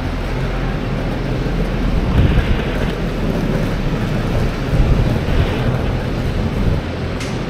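Steady low rumble of idling buses and road traffic, mixed with wind noise on the microphone that swells now and then.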